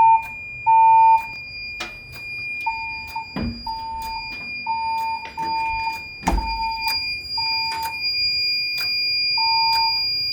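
Fire alarm voice-evacuation speakers sounding a pulsed alert tone between evacuation messages: half-second beeps about once a second, in groups separated by short pauses. A steady high whine and scattered sharp clicks run underneath, with two dull knocks in the middle.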